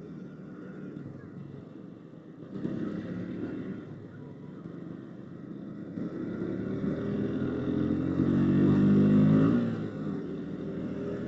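Motorcycle engine running with road and wind noise, heard from the rider's seat while riding in traffic. The engine grows louder through the second half, then drops back shortly before the end.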